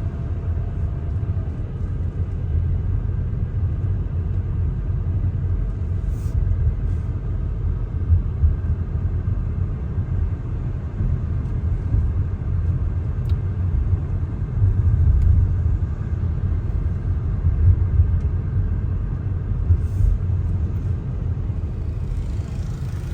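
Steady low rumble of a vehicle being driven along a road, engine and road noise.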